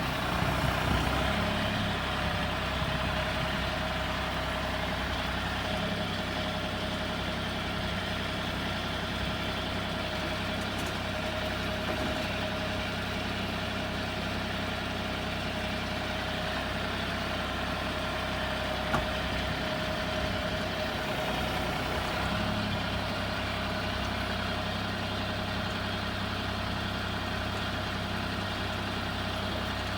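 Rice combine harvester running steadily, its engine and threshing machinery making an even drone with a steady whine over it. A single sharp click about two-thirds of the way through.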